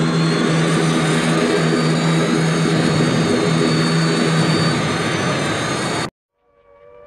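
Heavy multi-engine propeller aircraft droning steadily, like a bomber formation in flight, then cutting off abruptly about six seconds in. Just before the end an air-raid siren starts winding up, its pitch rising.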